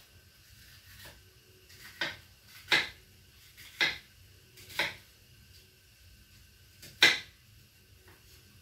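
Kitchen utensils knocking and clinking as food is handled: five or six short, sharp knocks spread a second or so apart, the loudest about two-thirds of the way through.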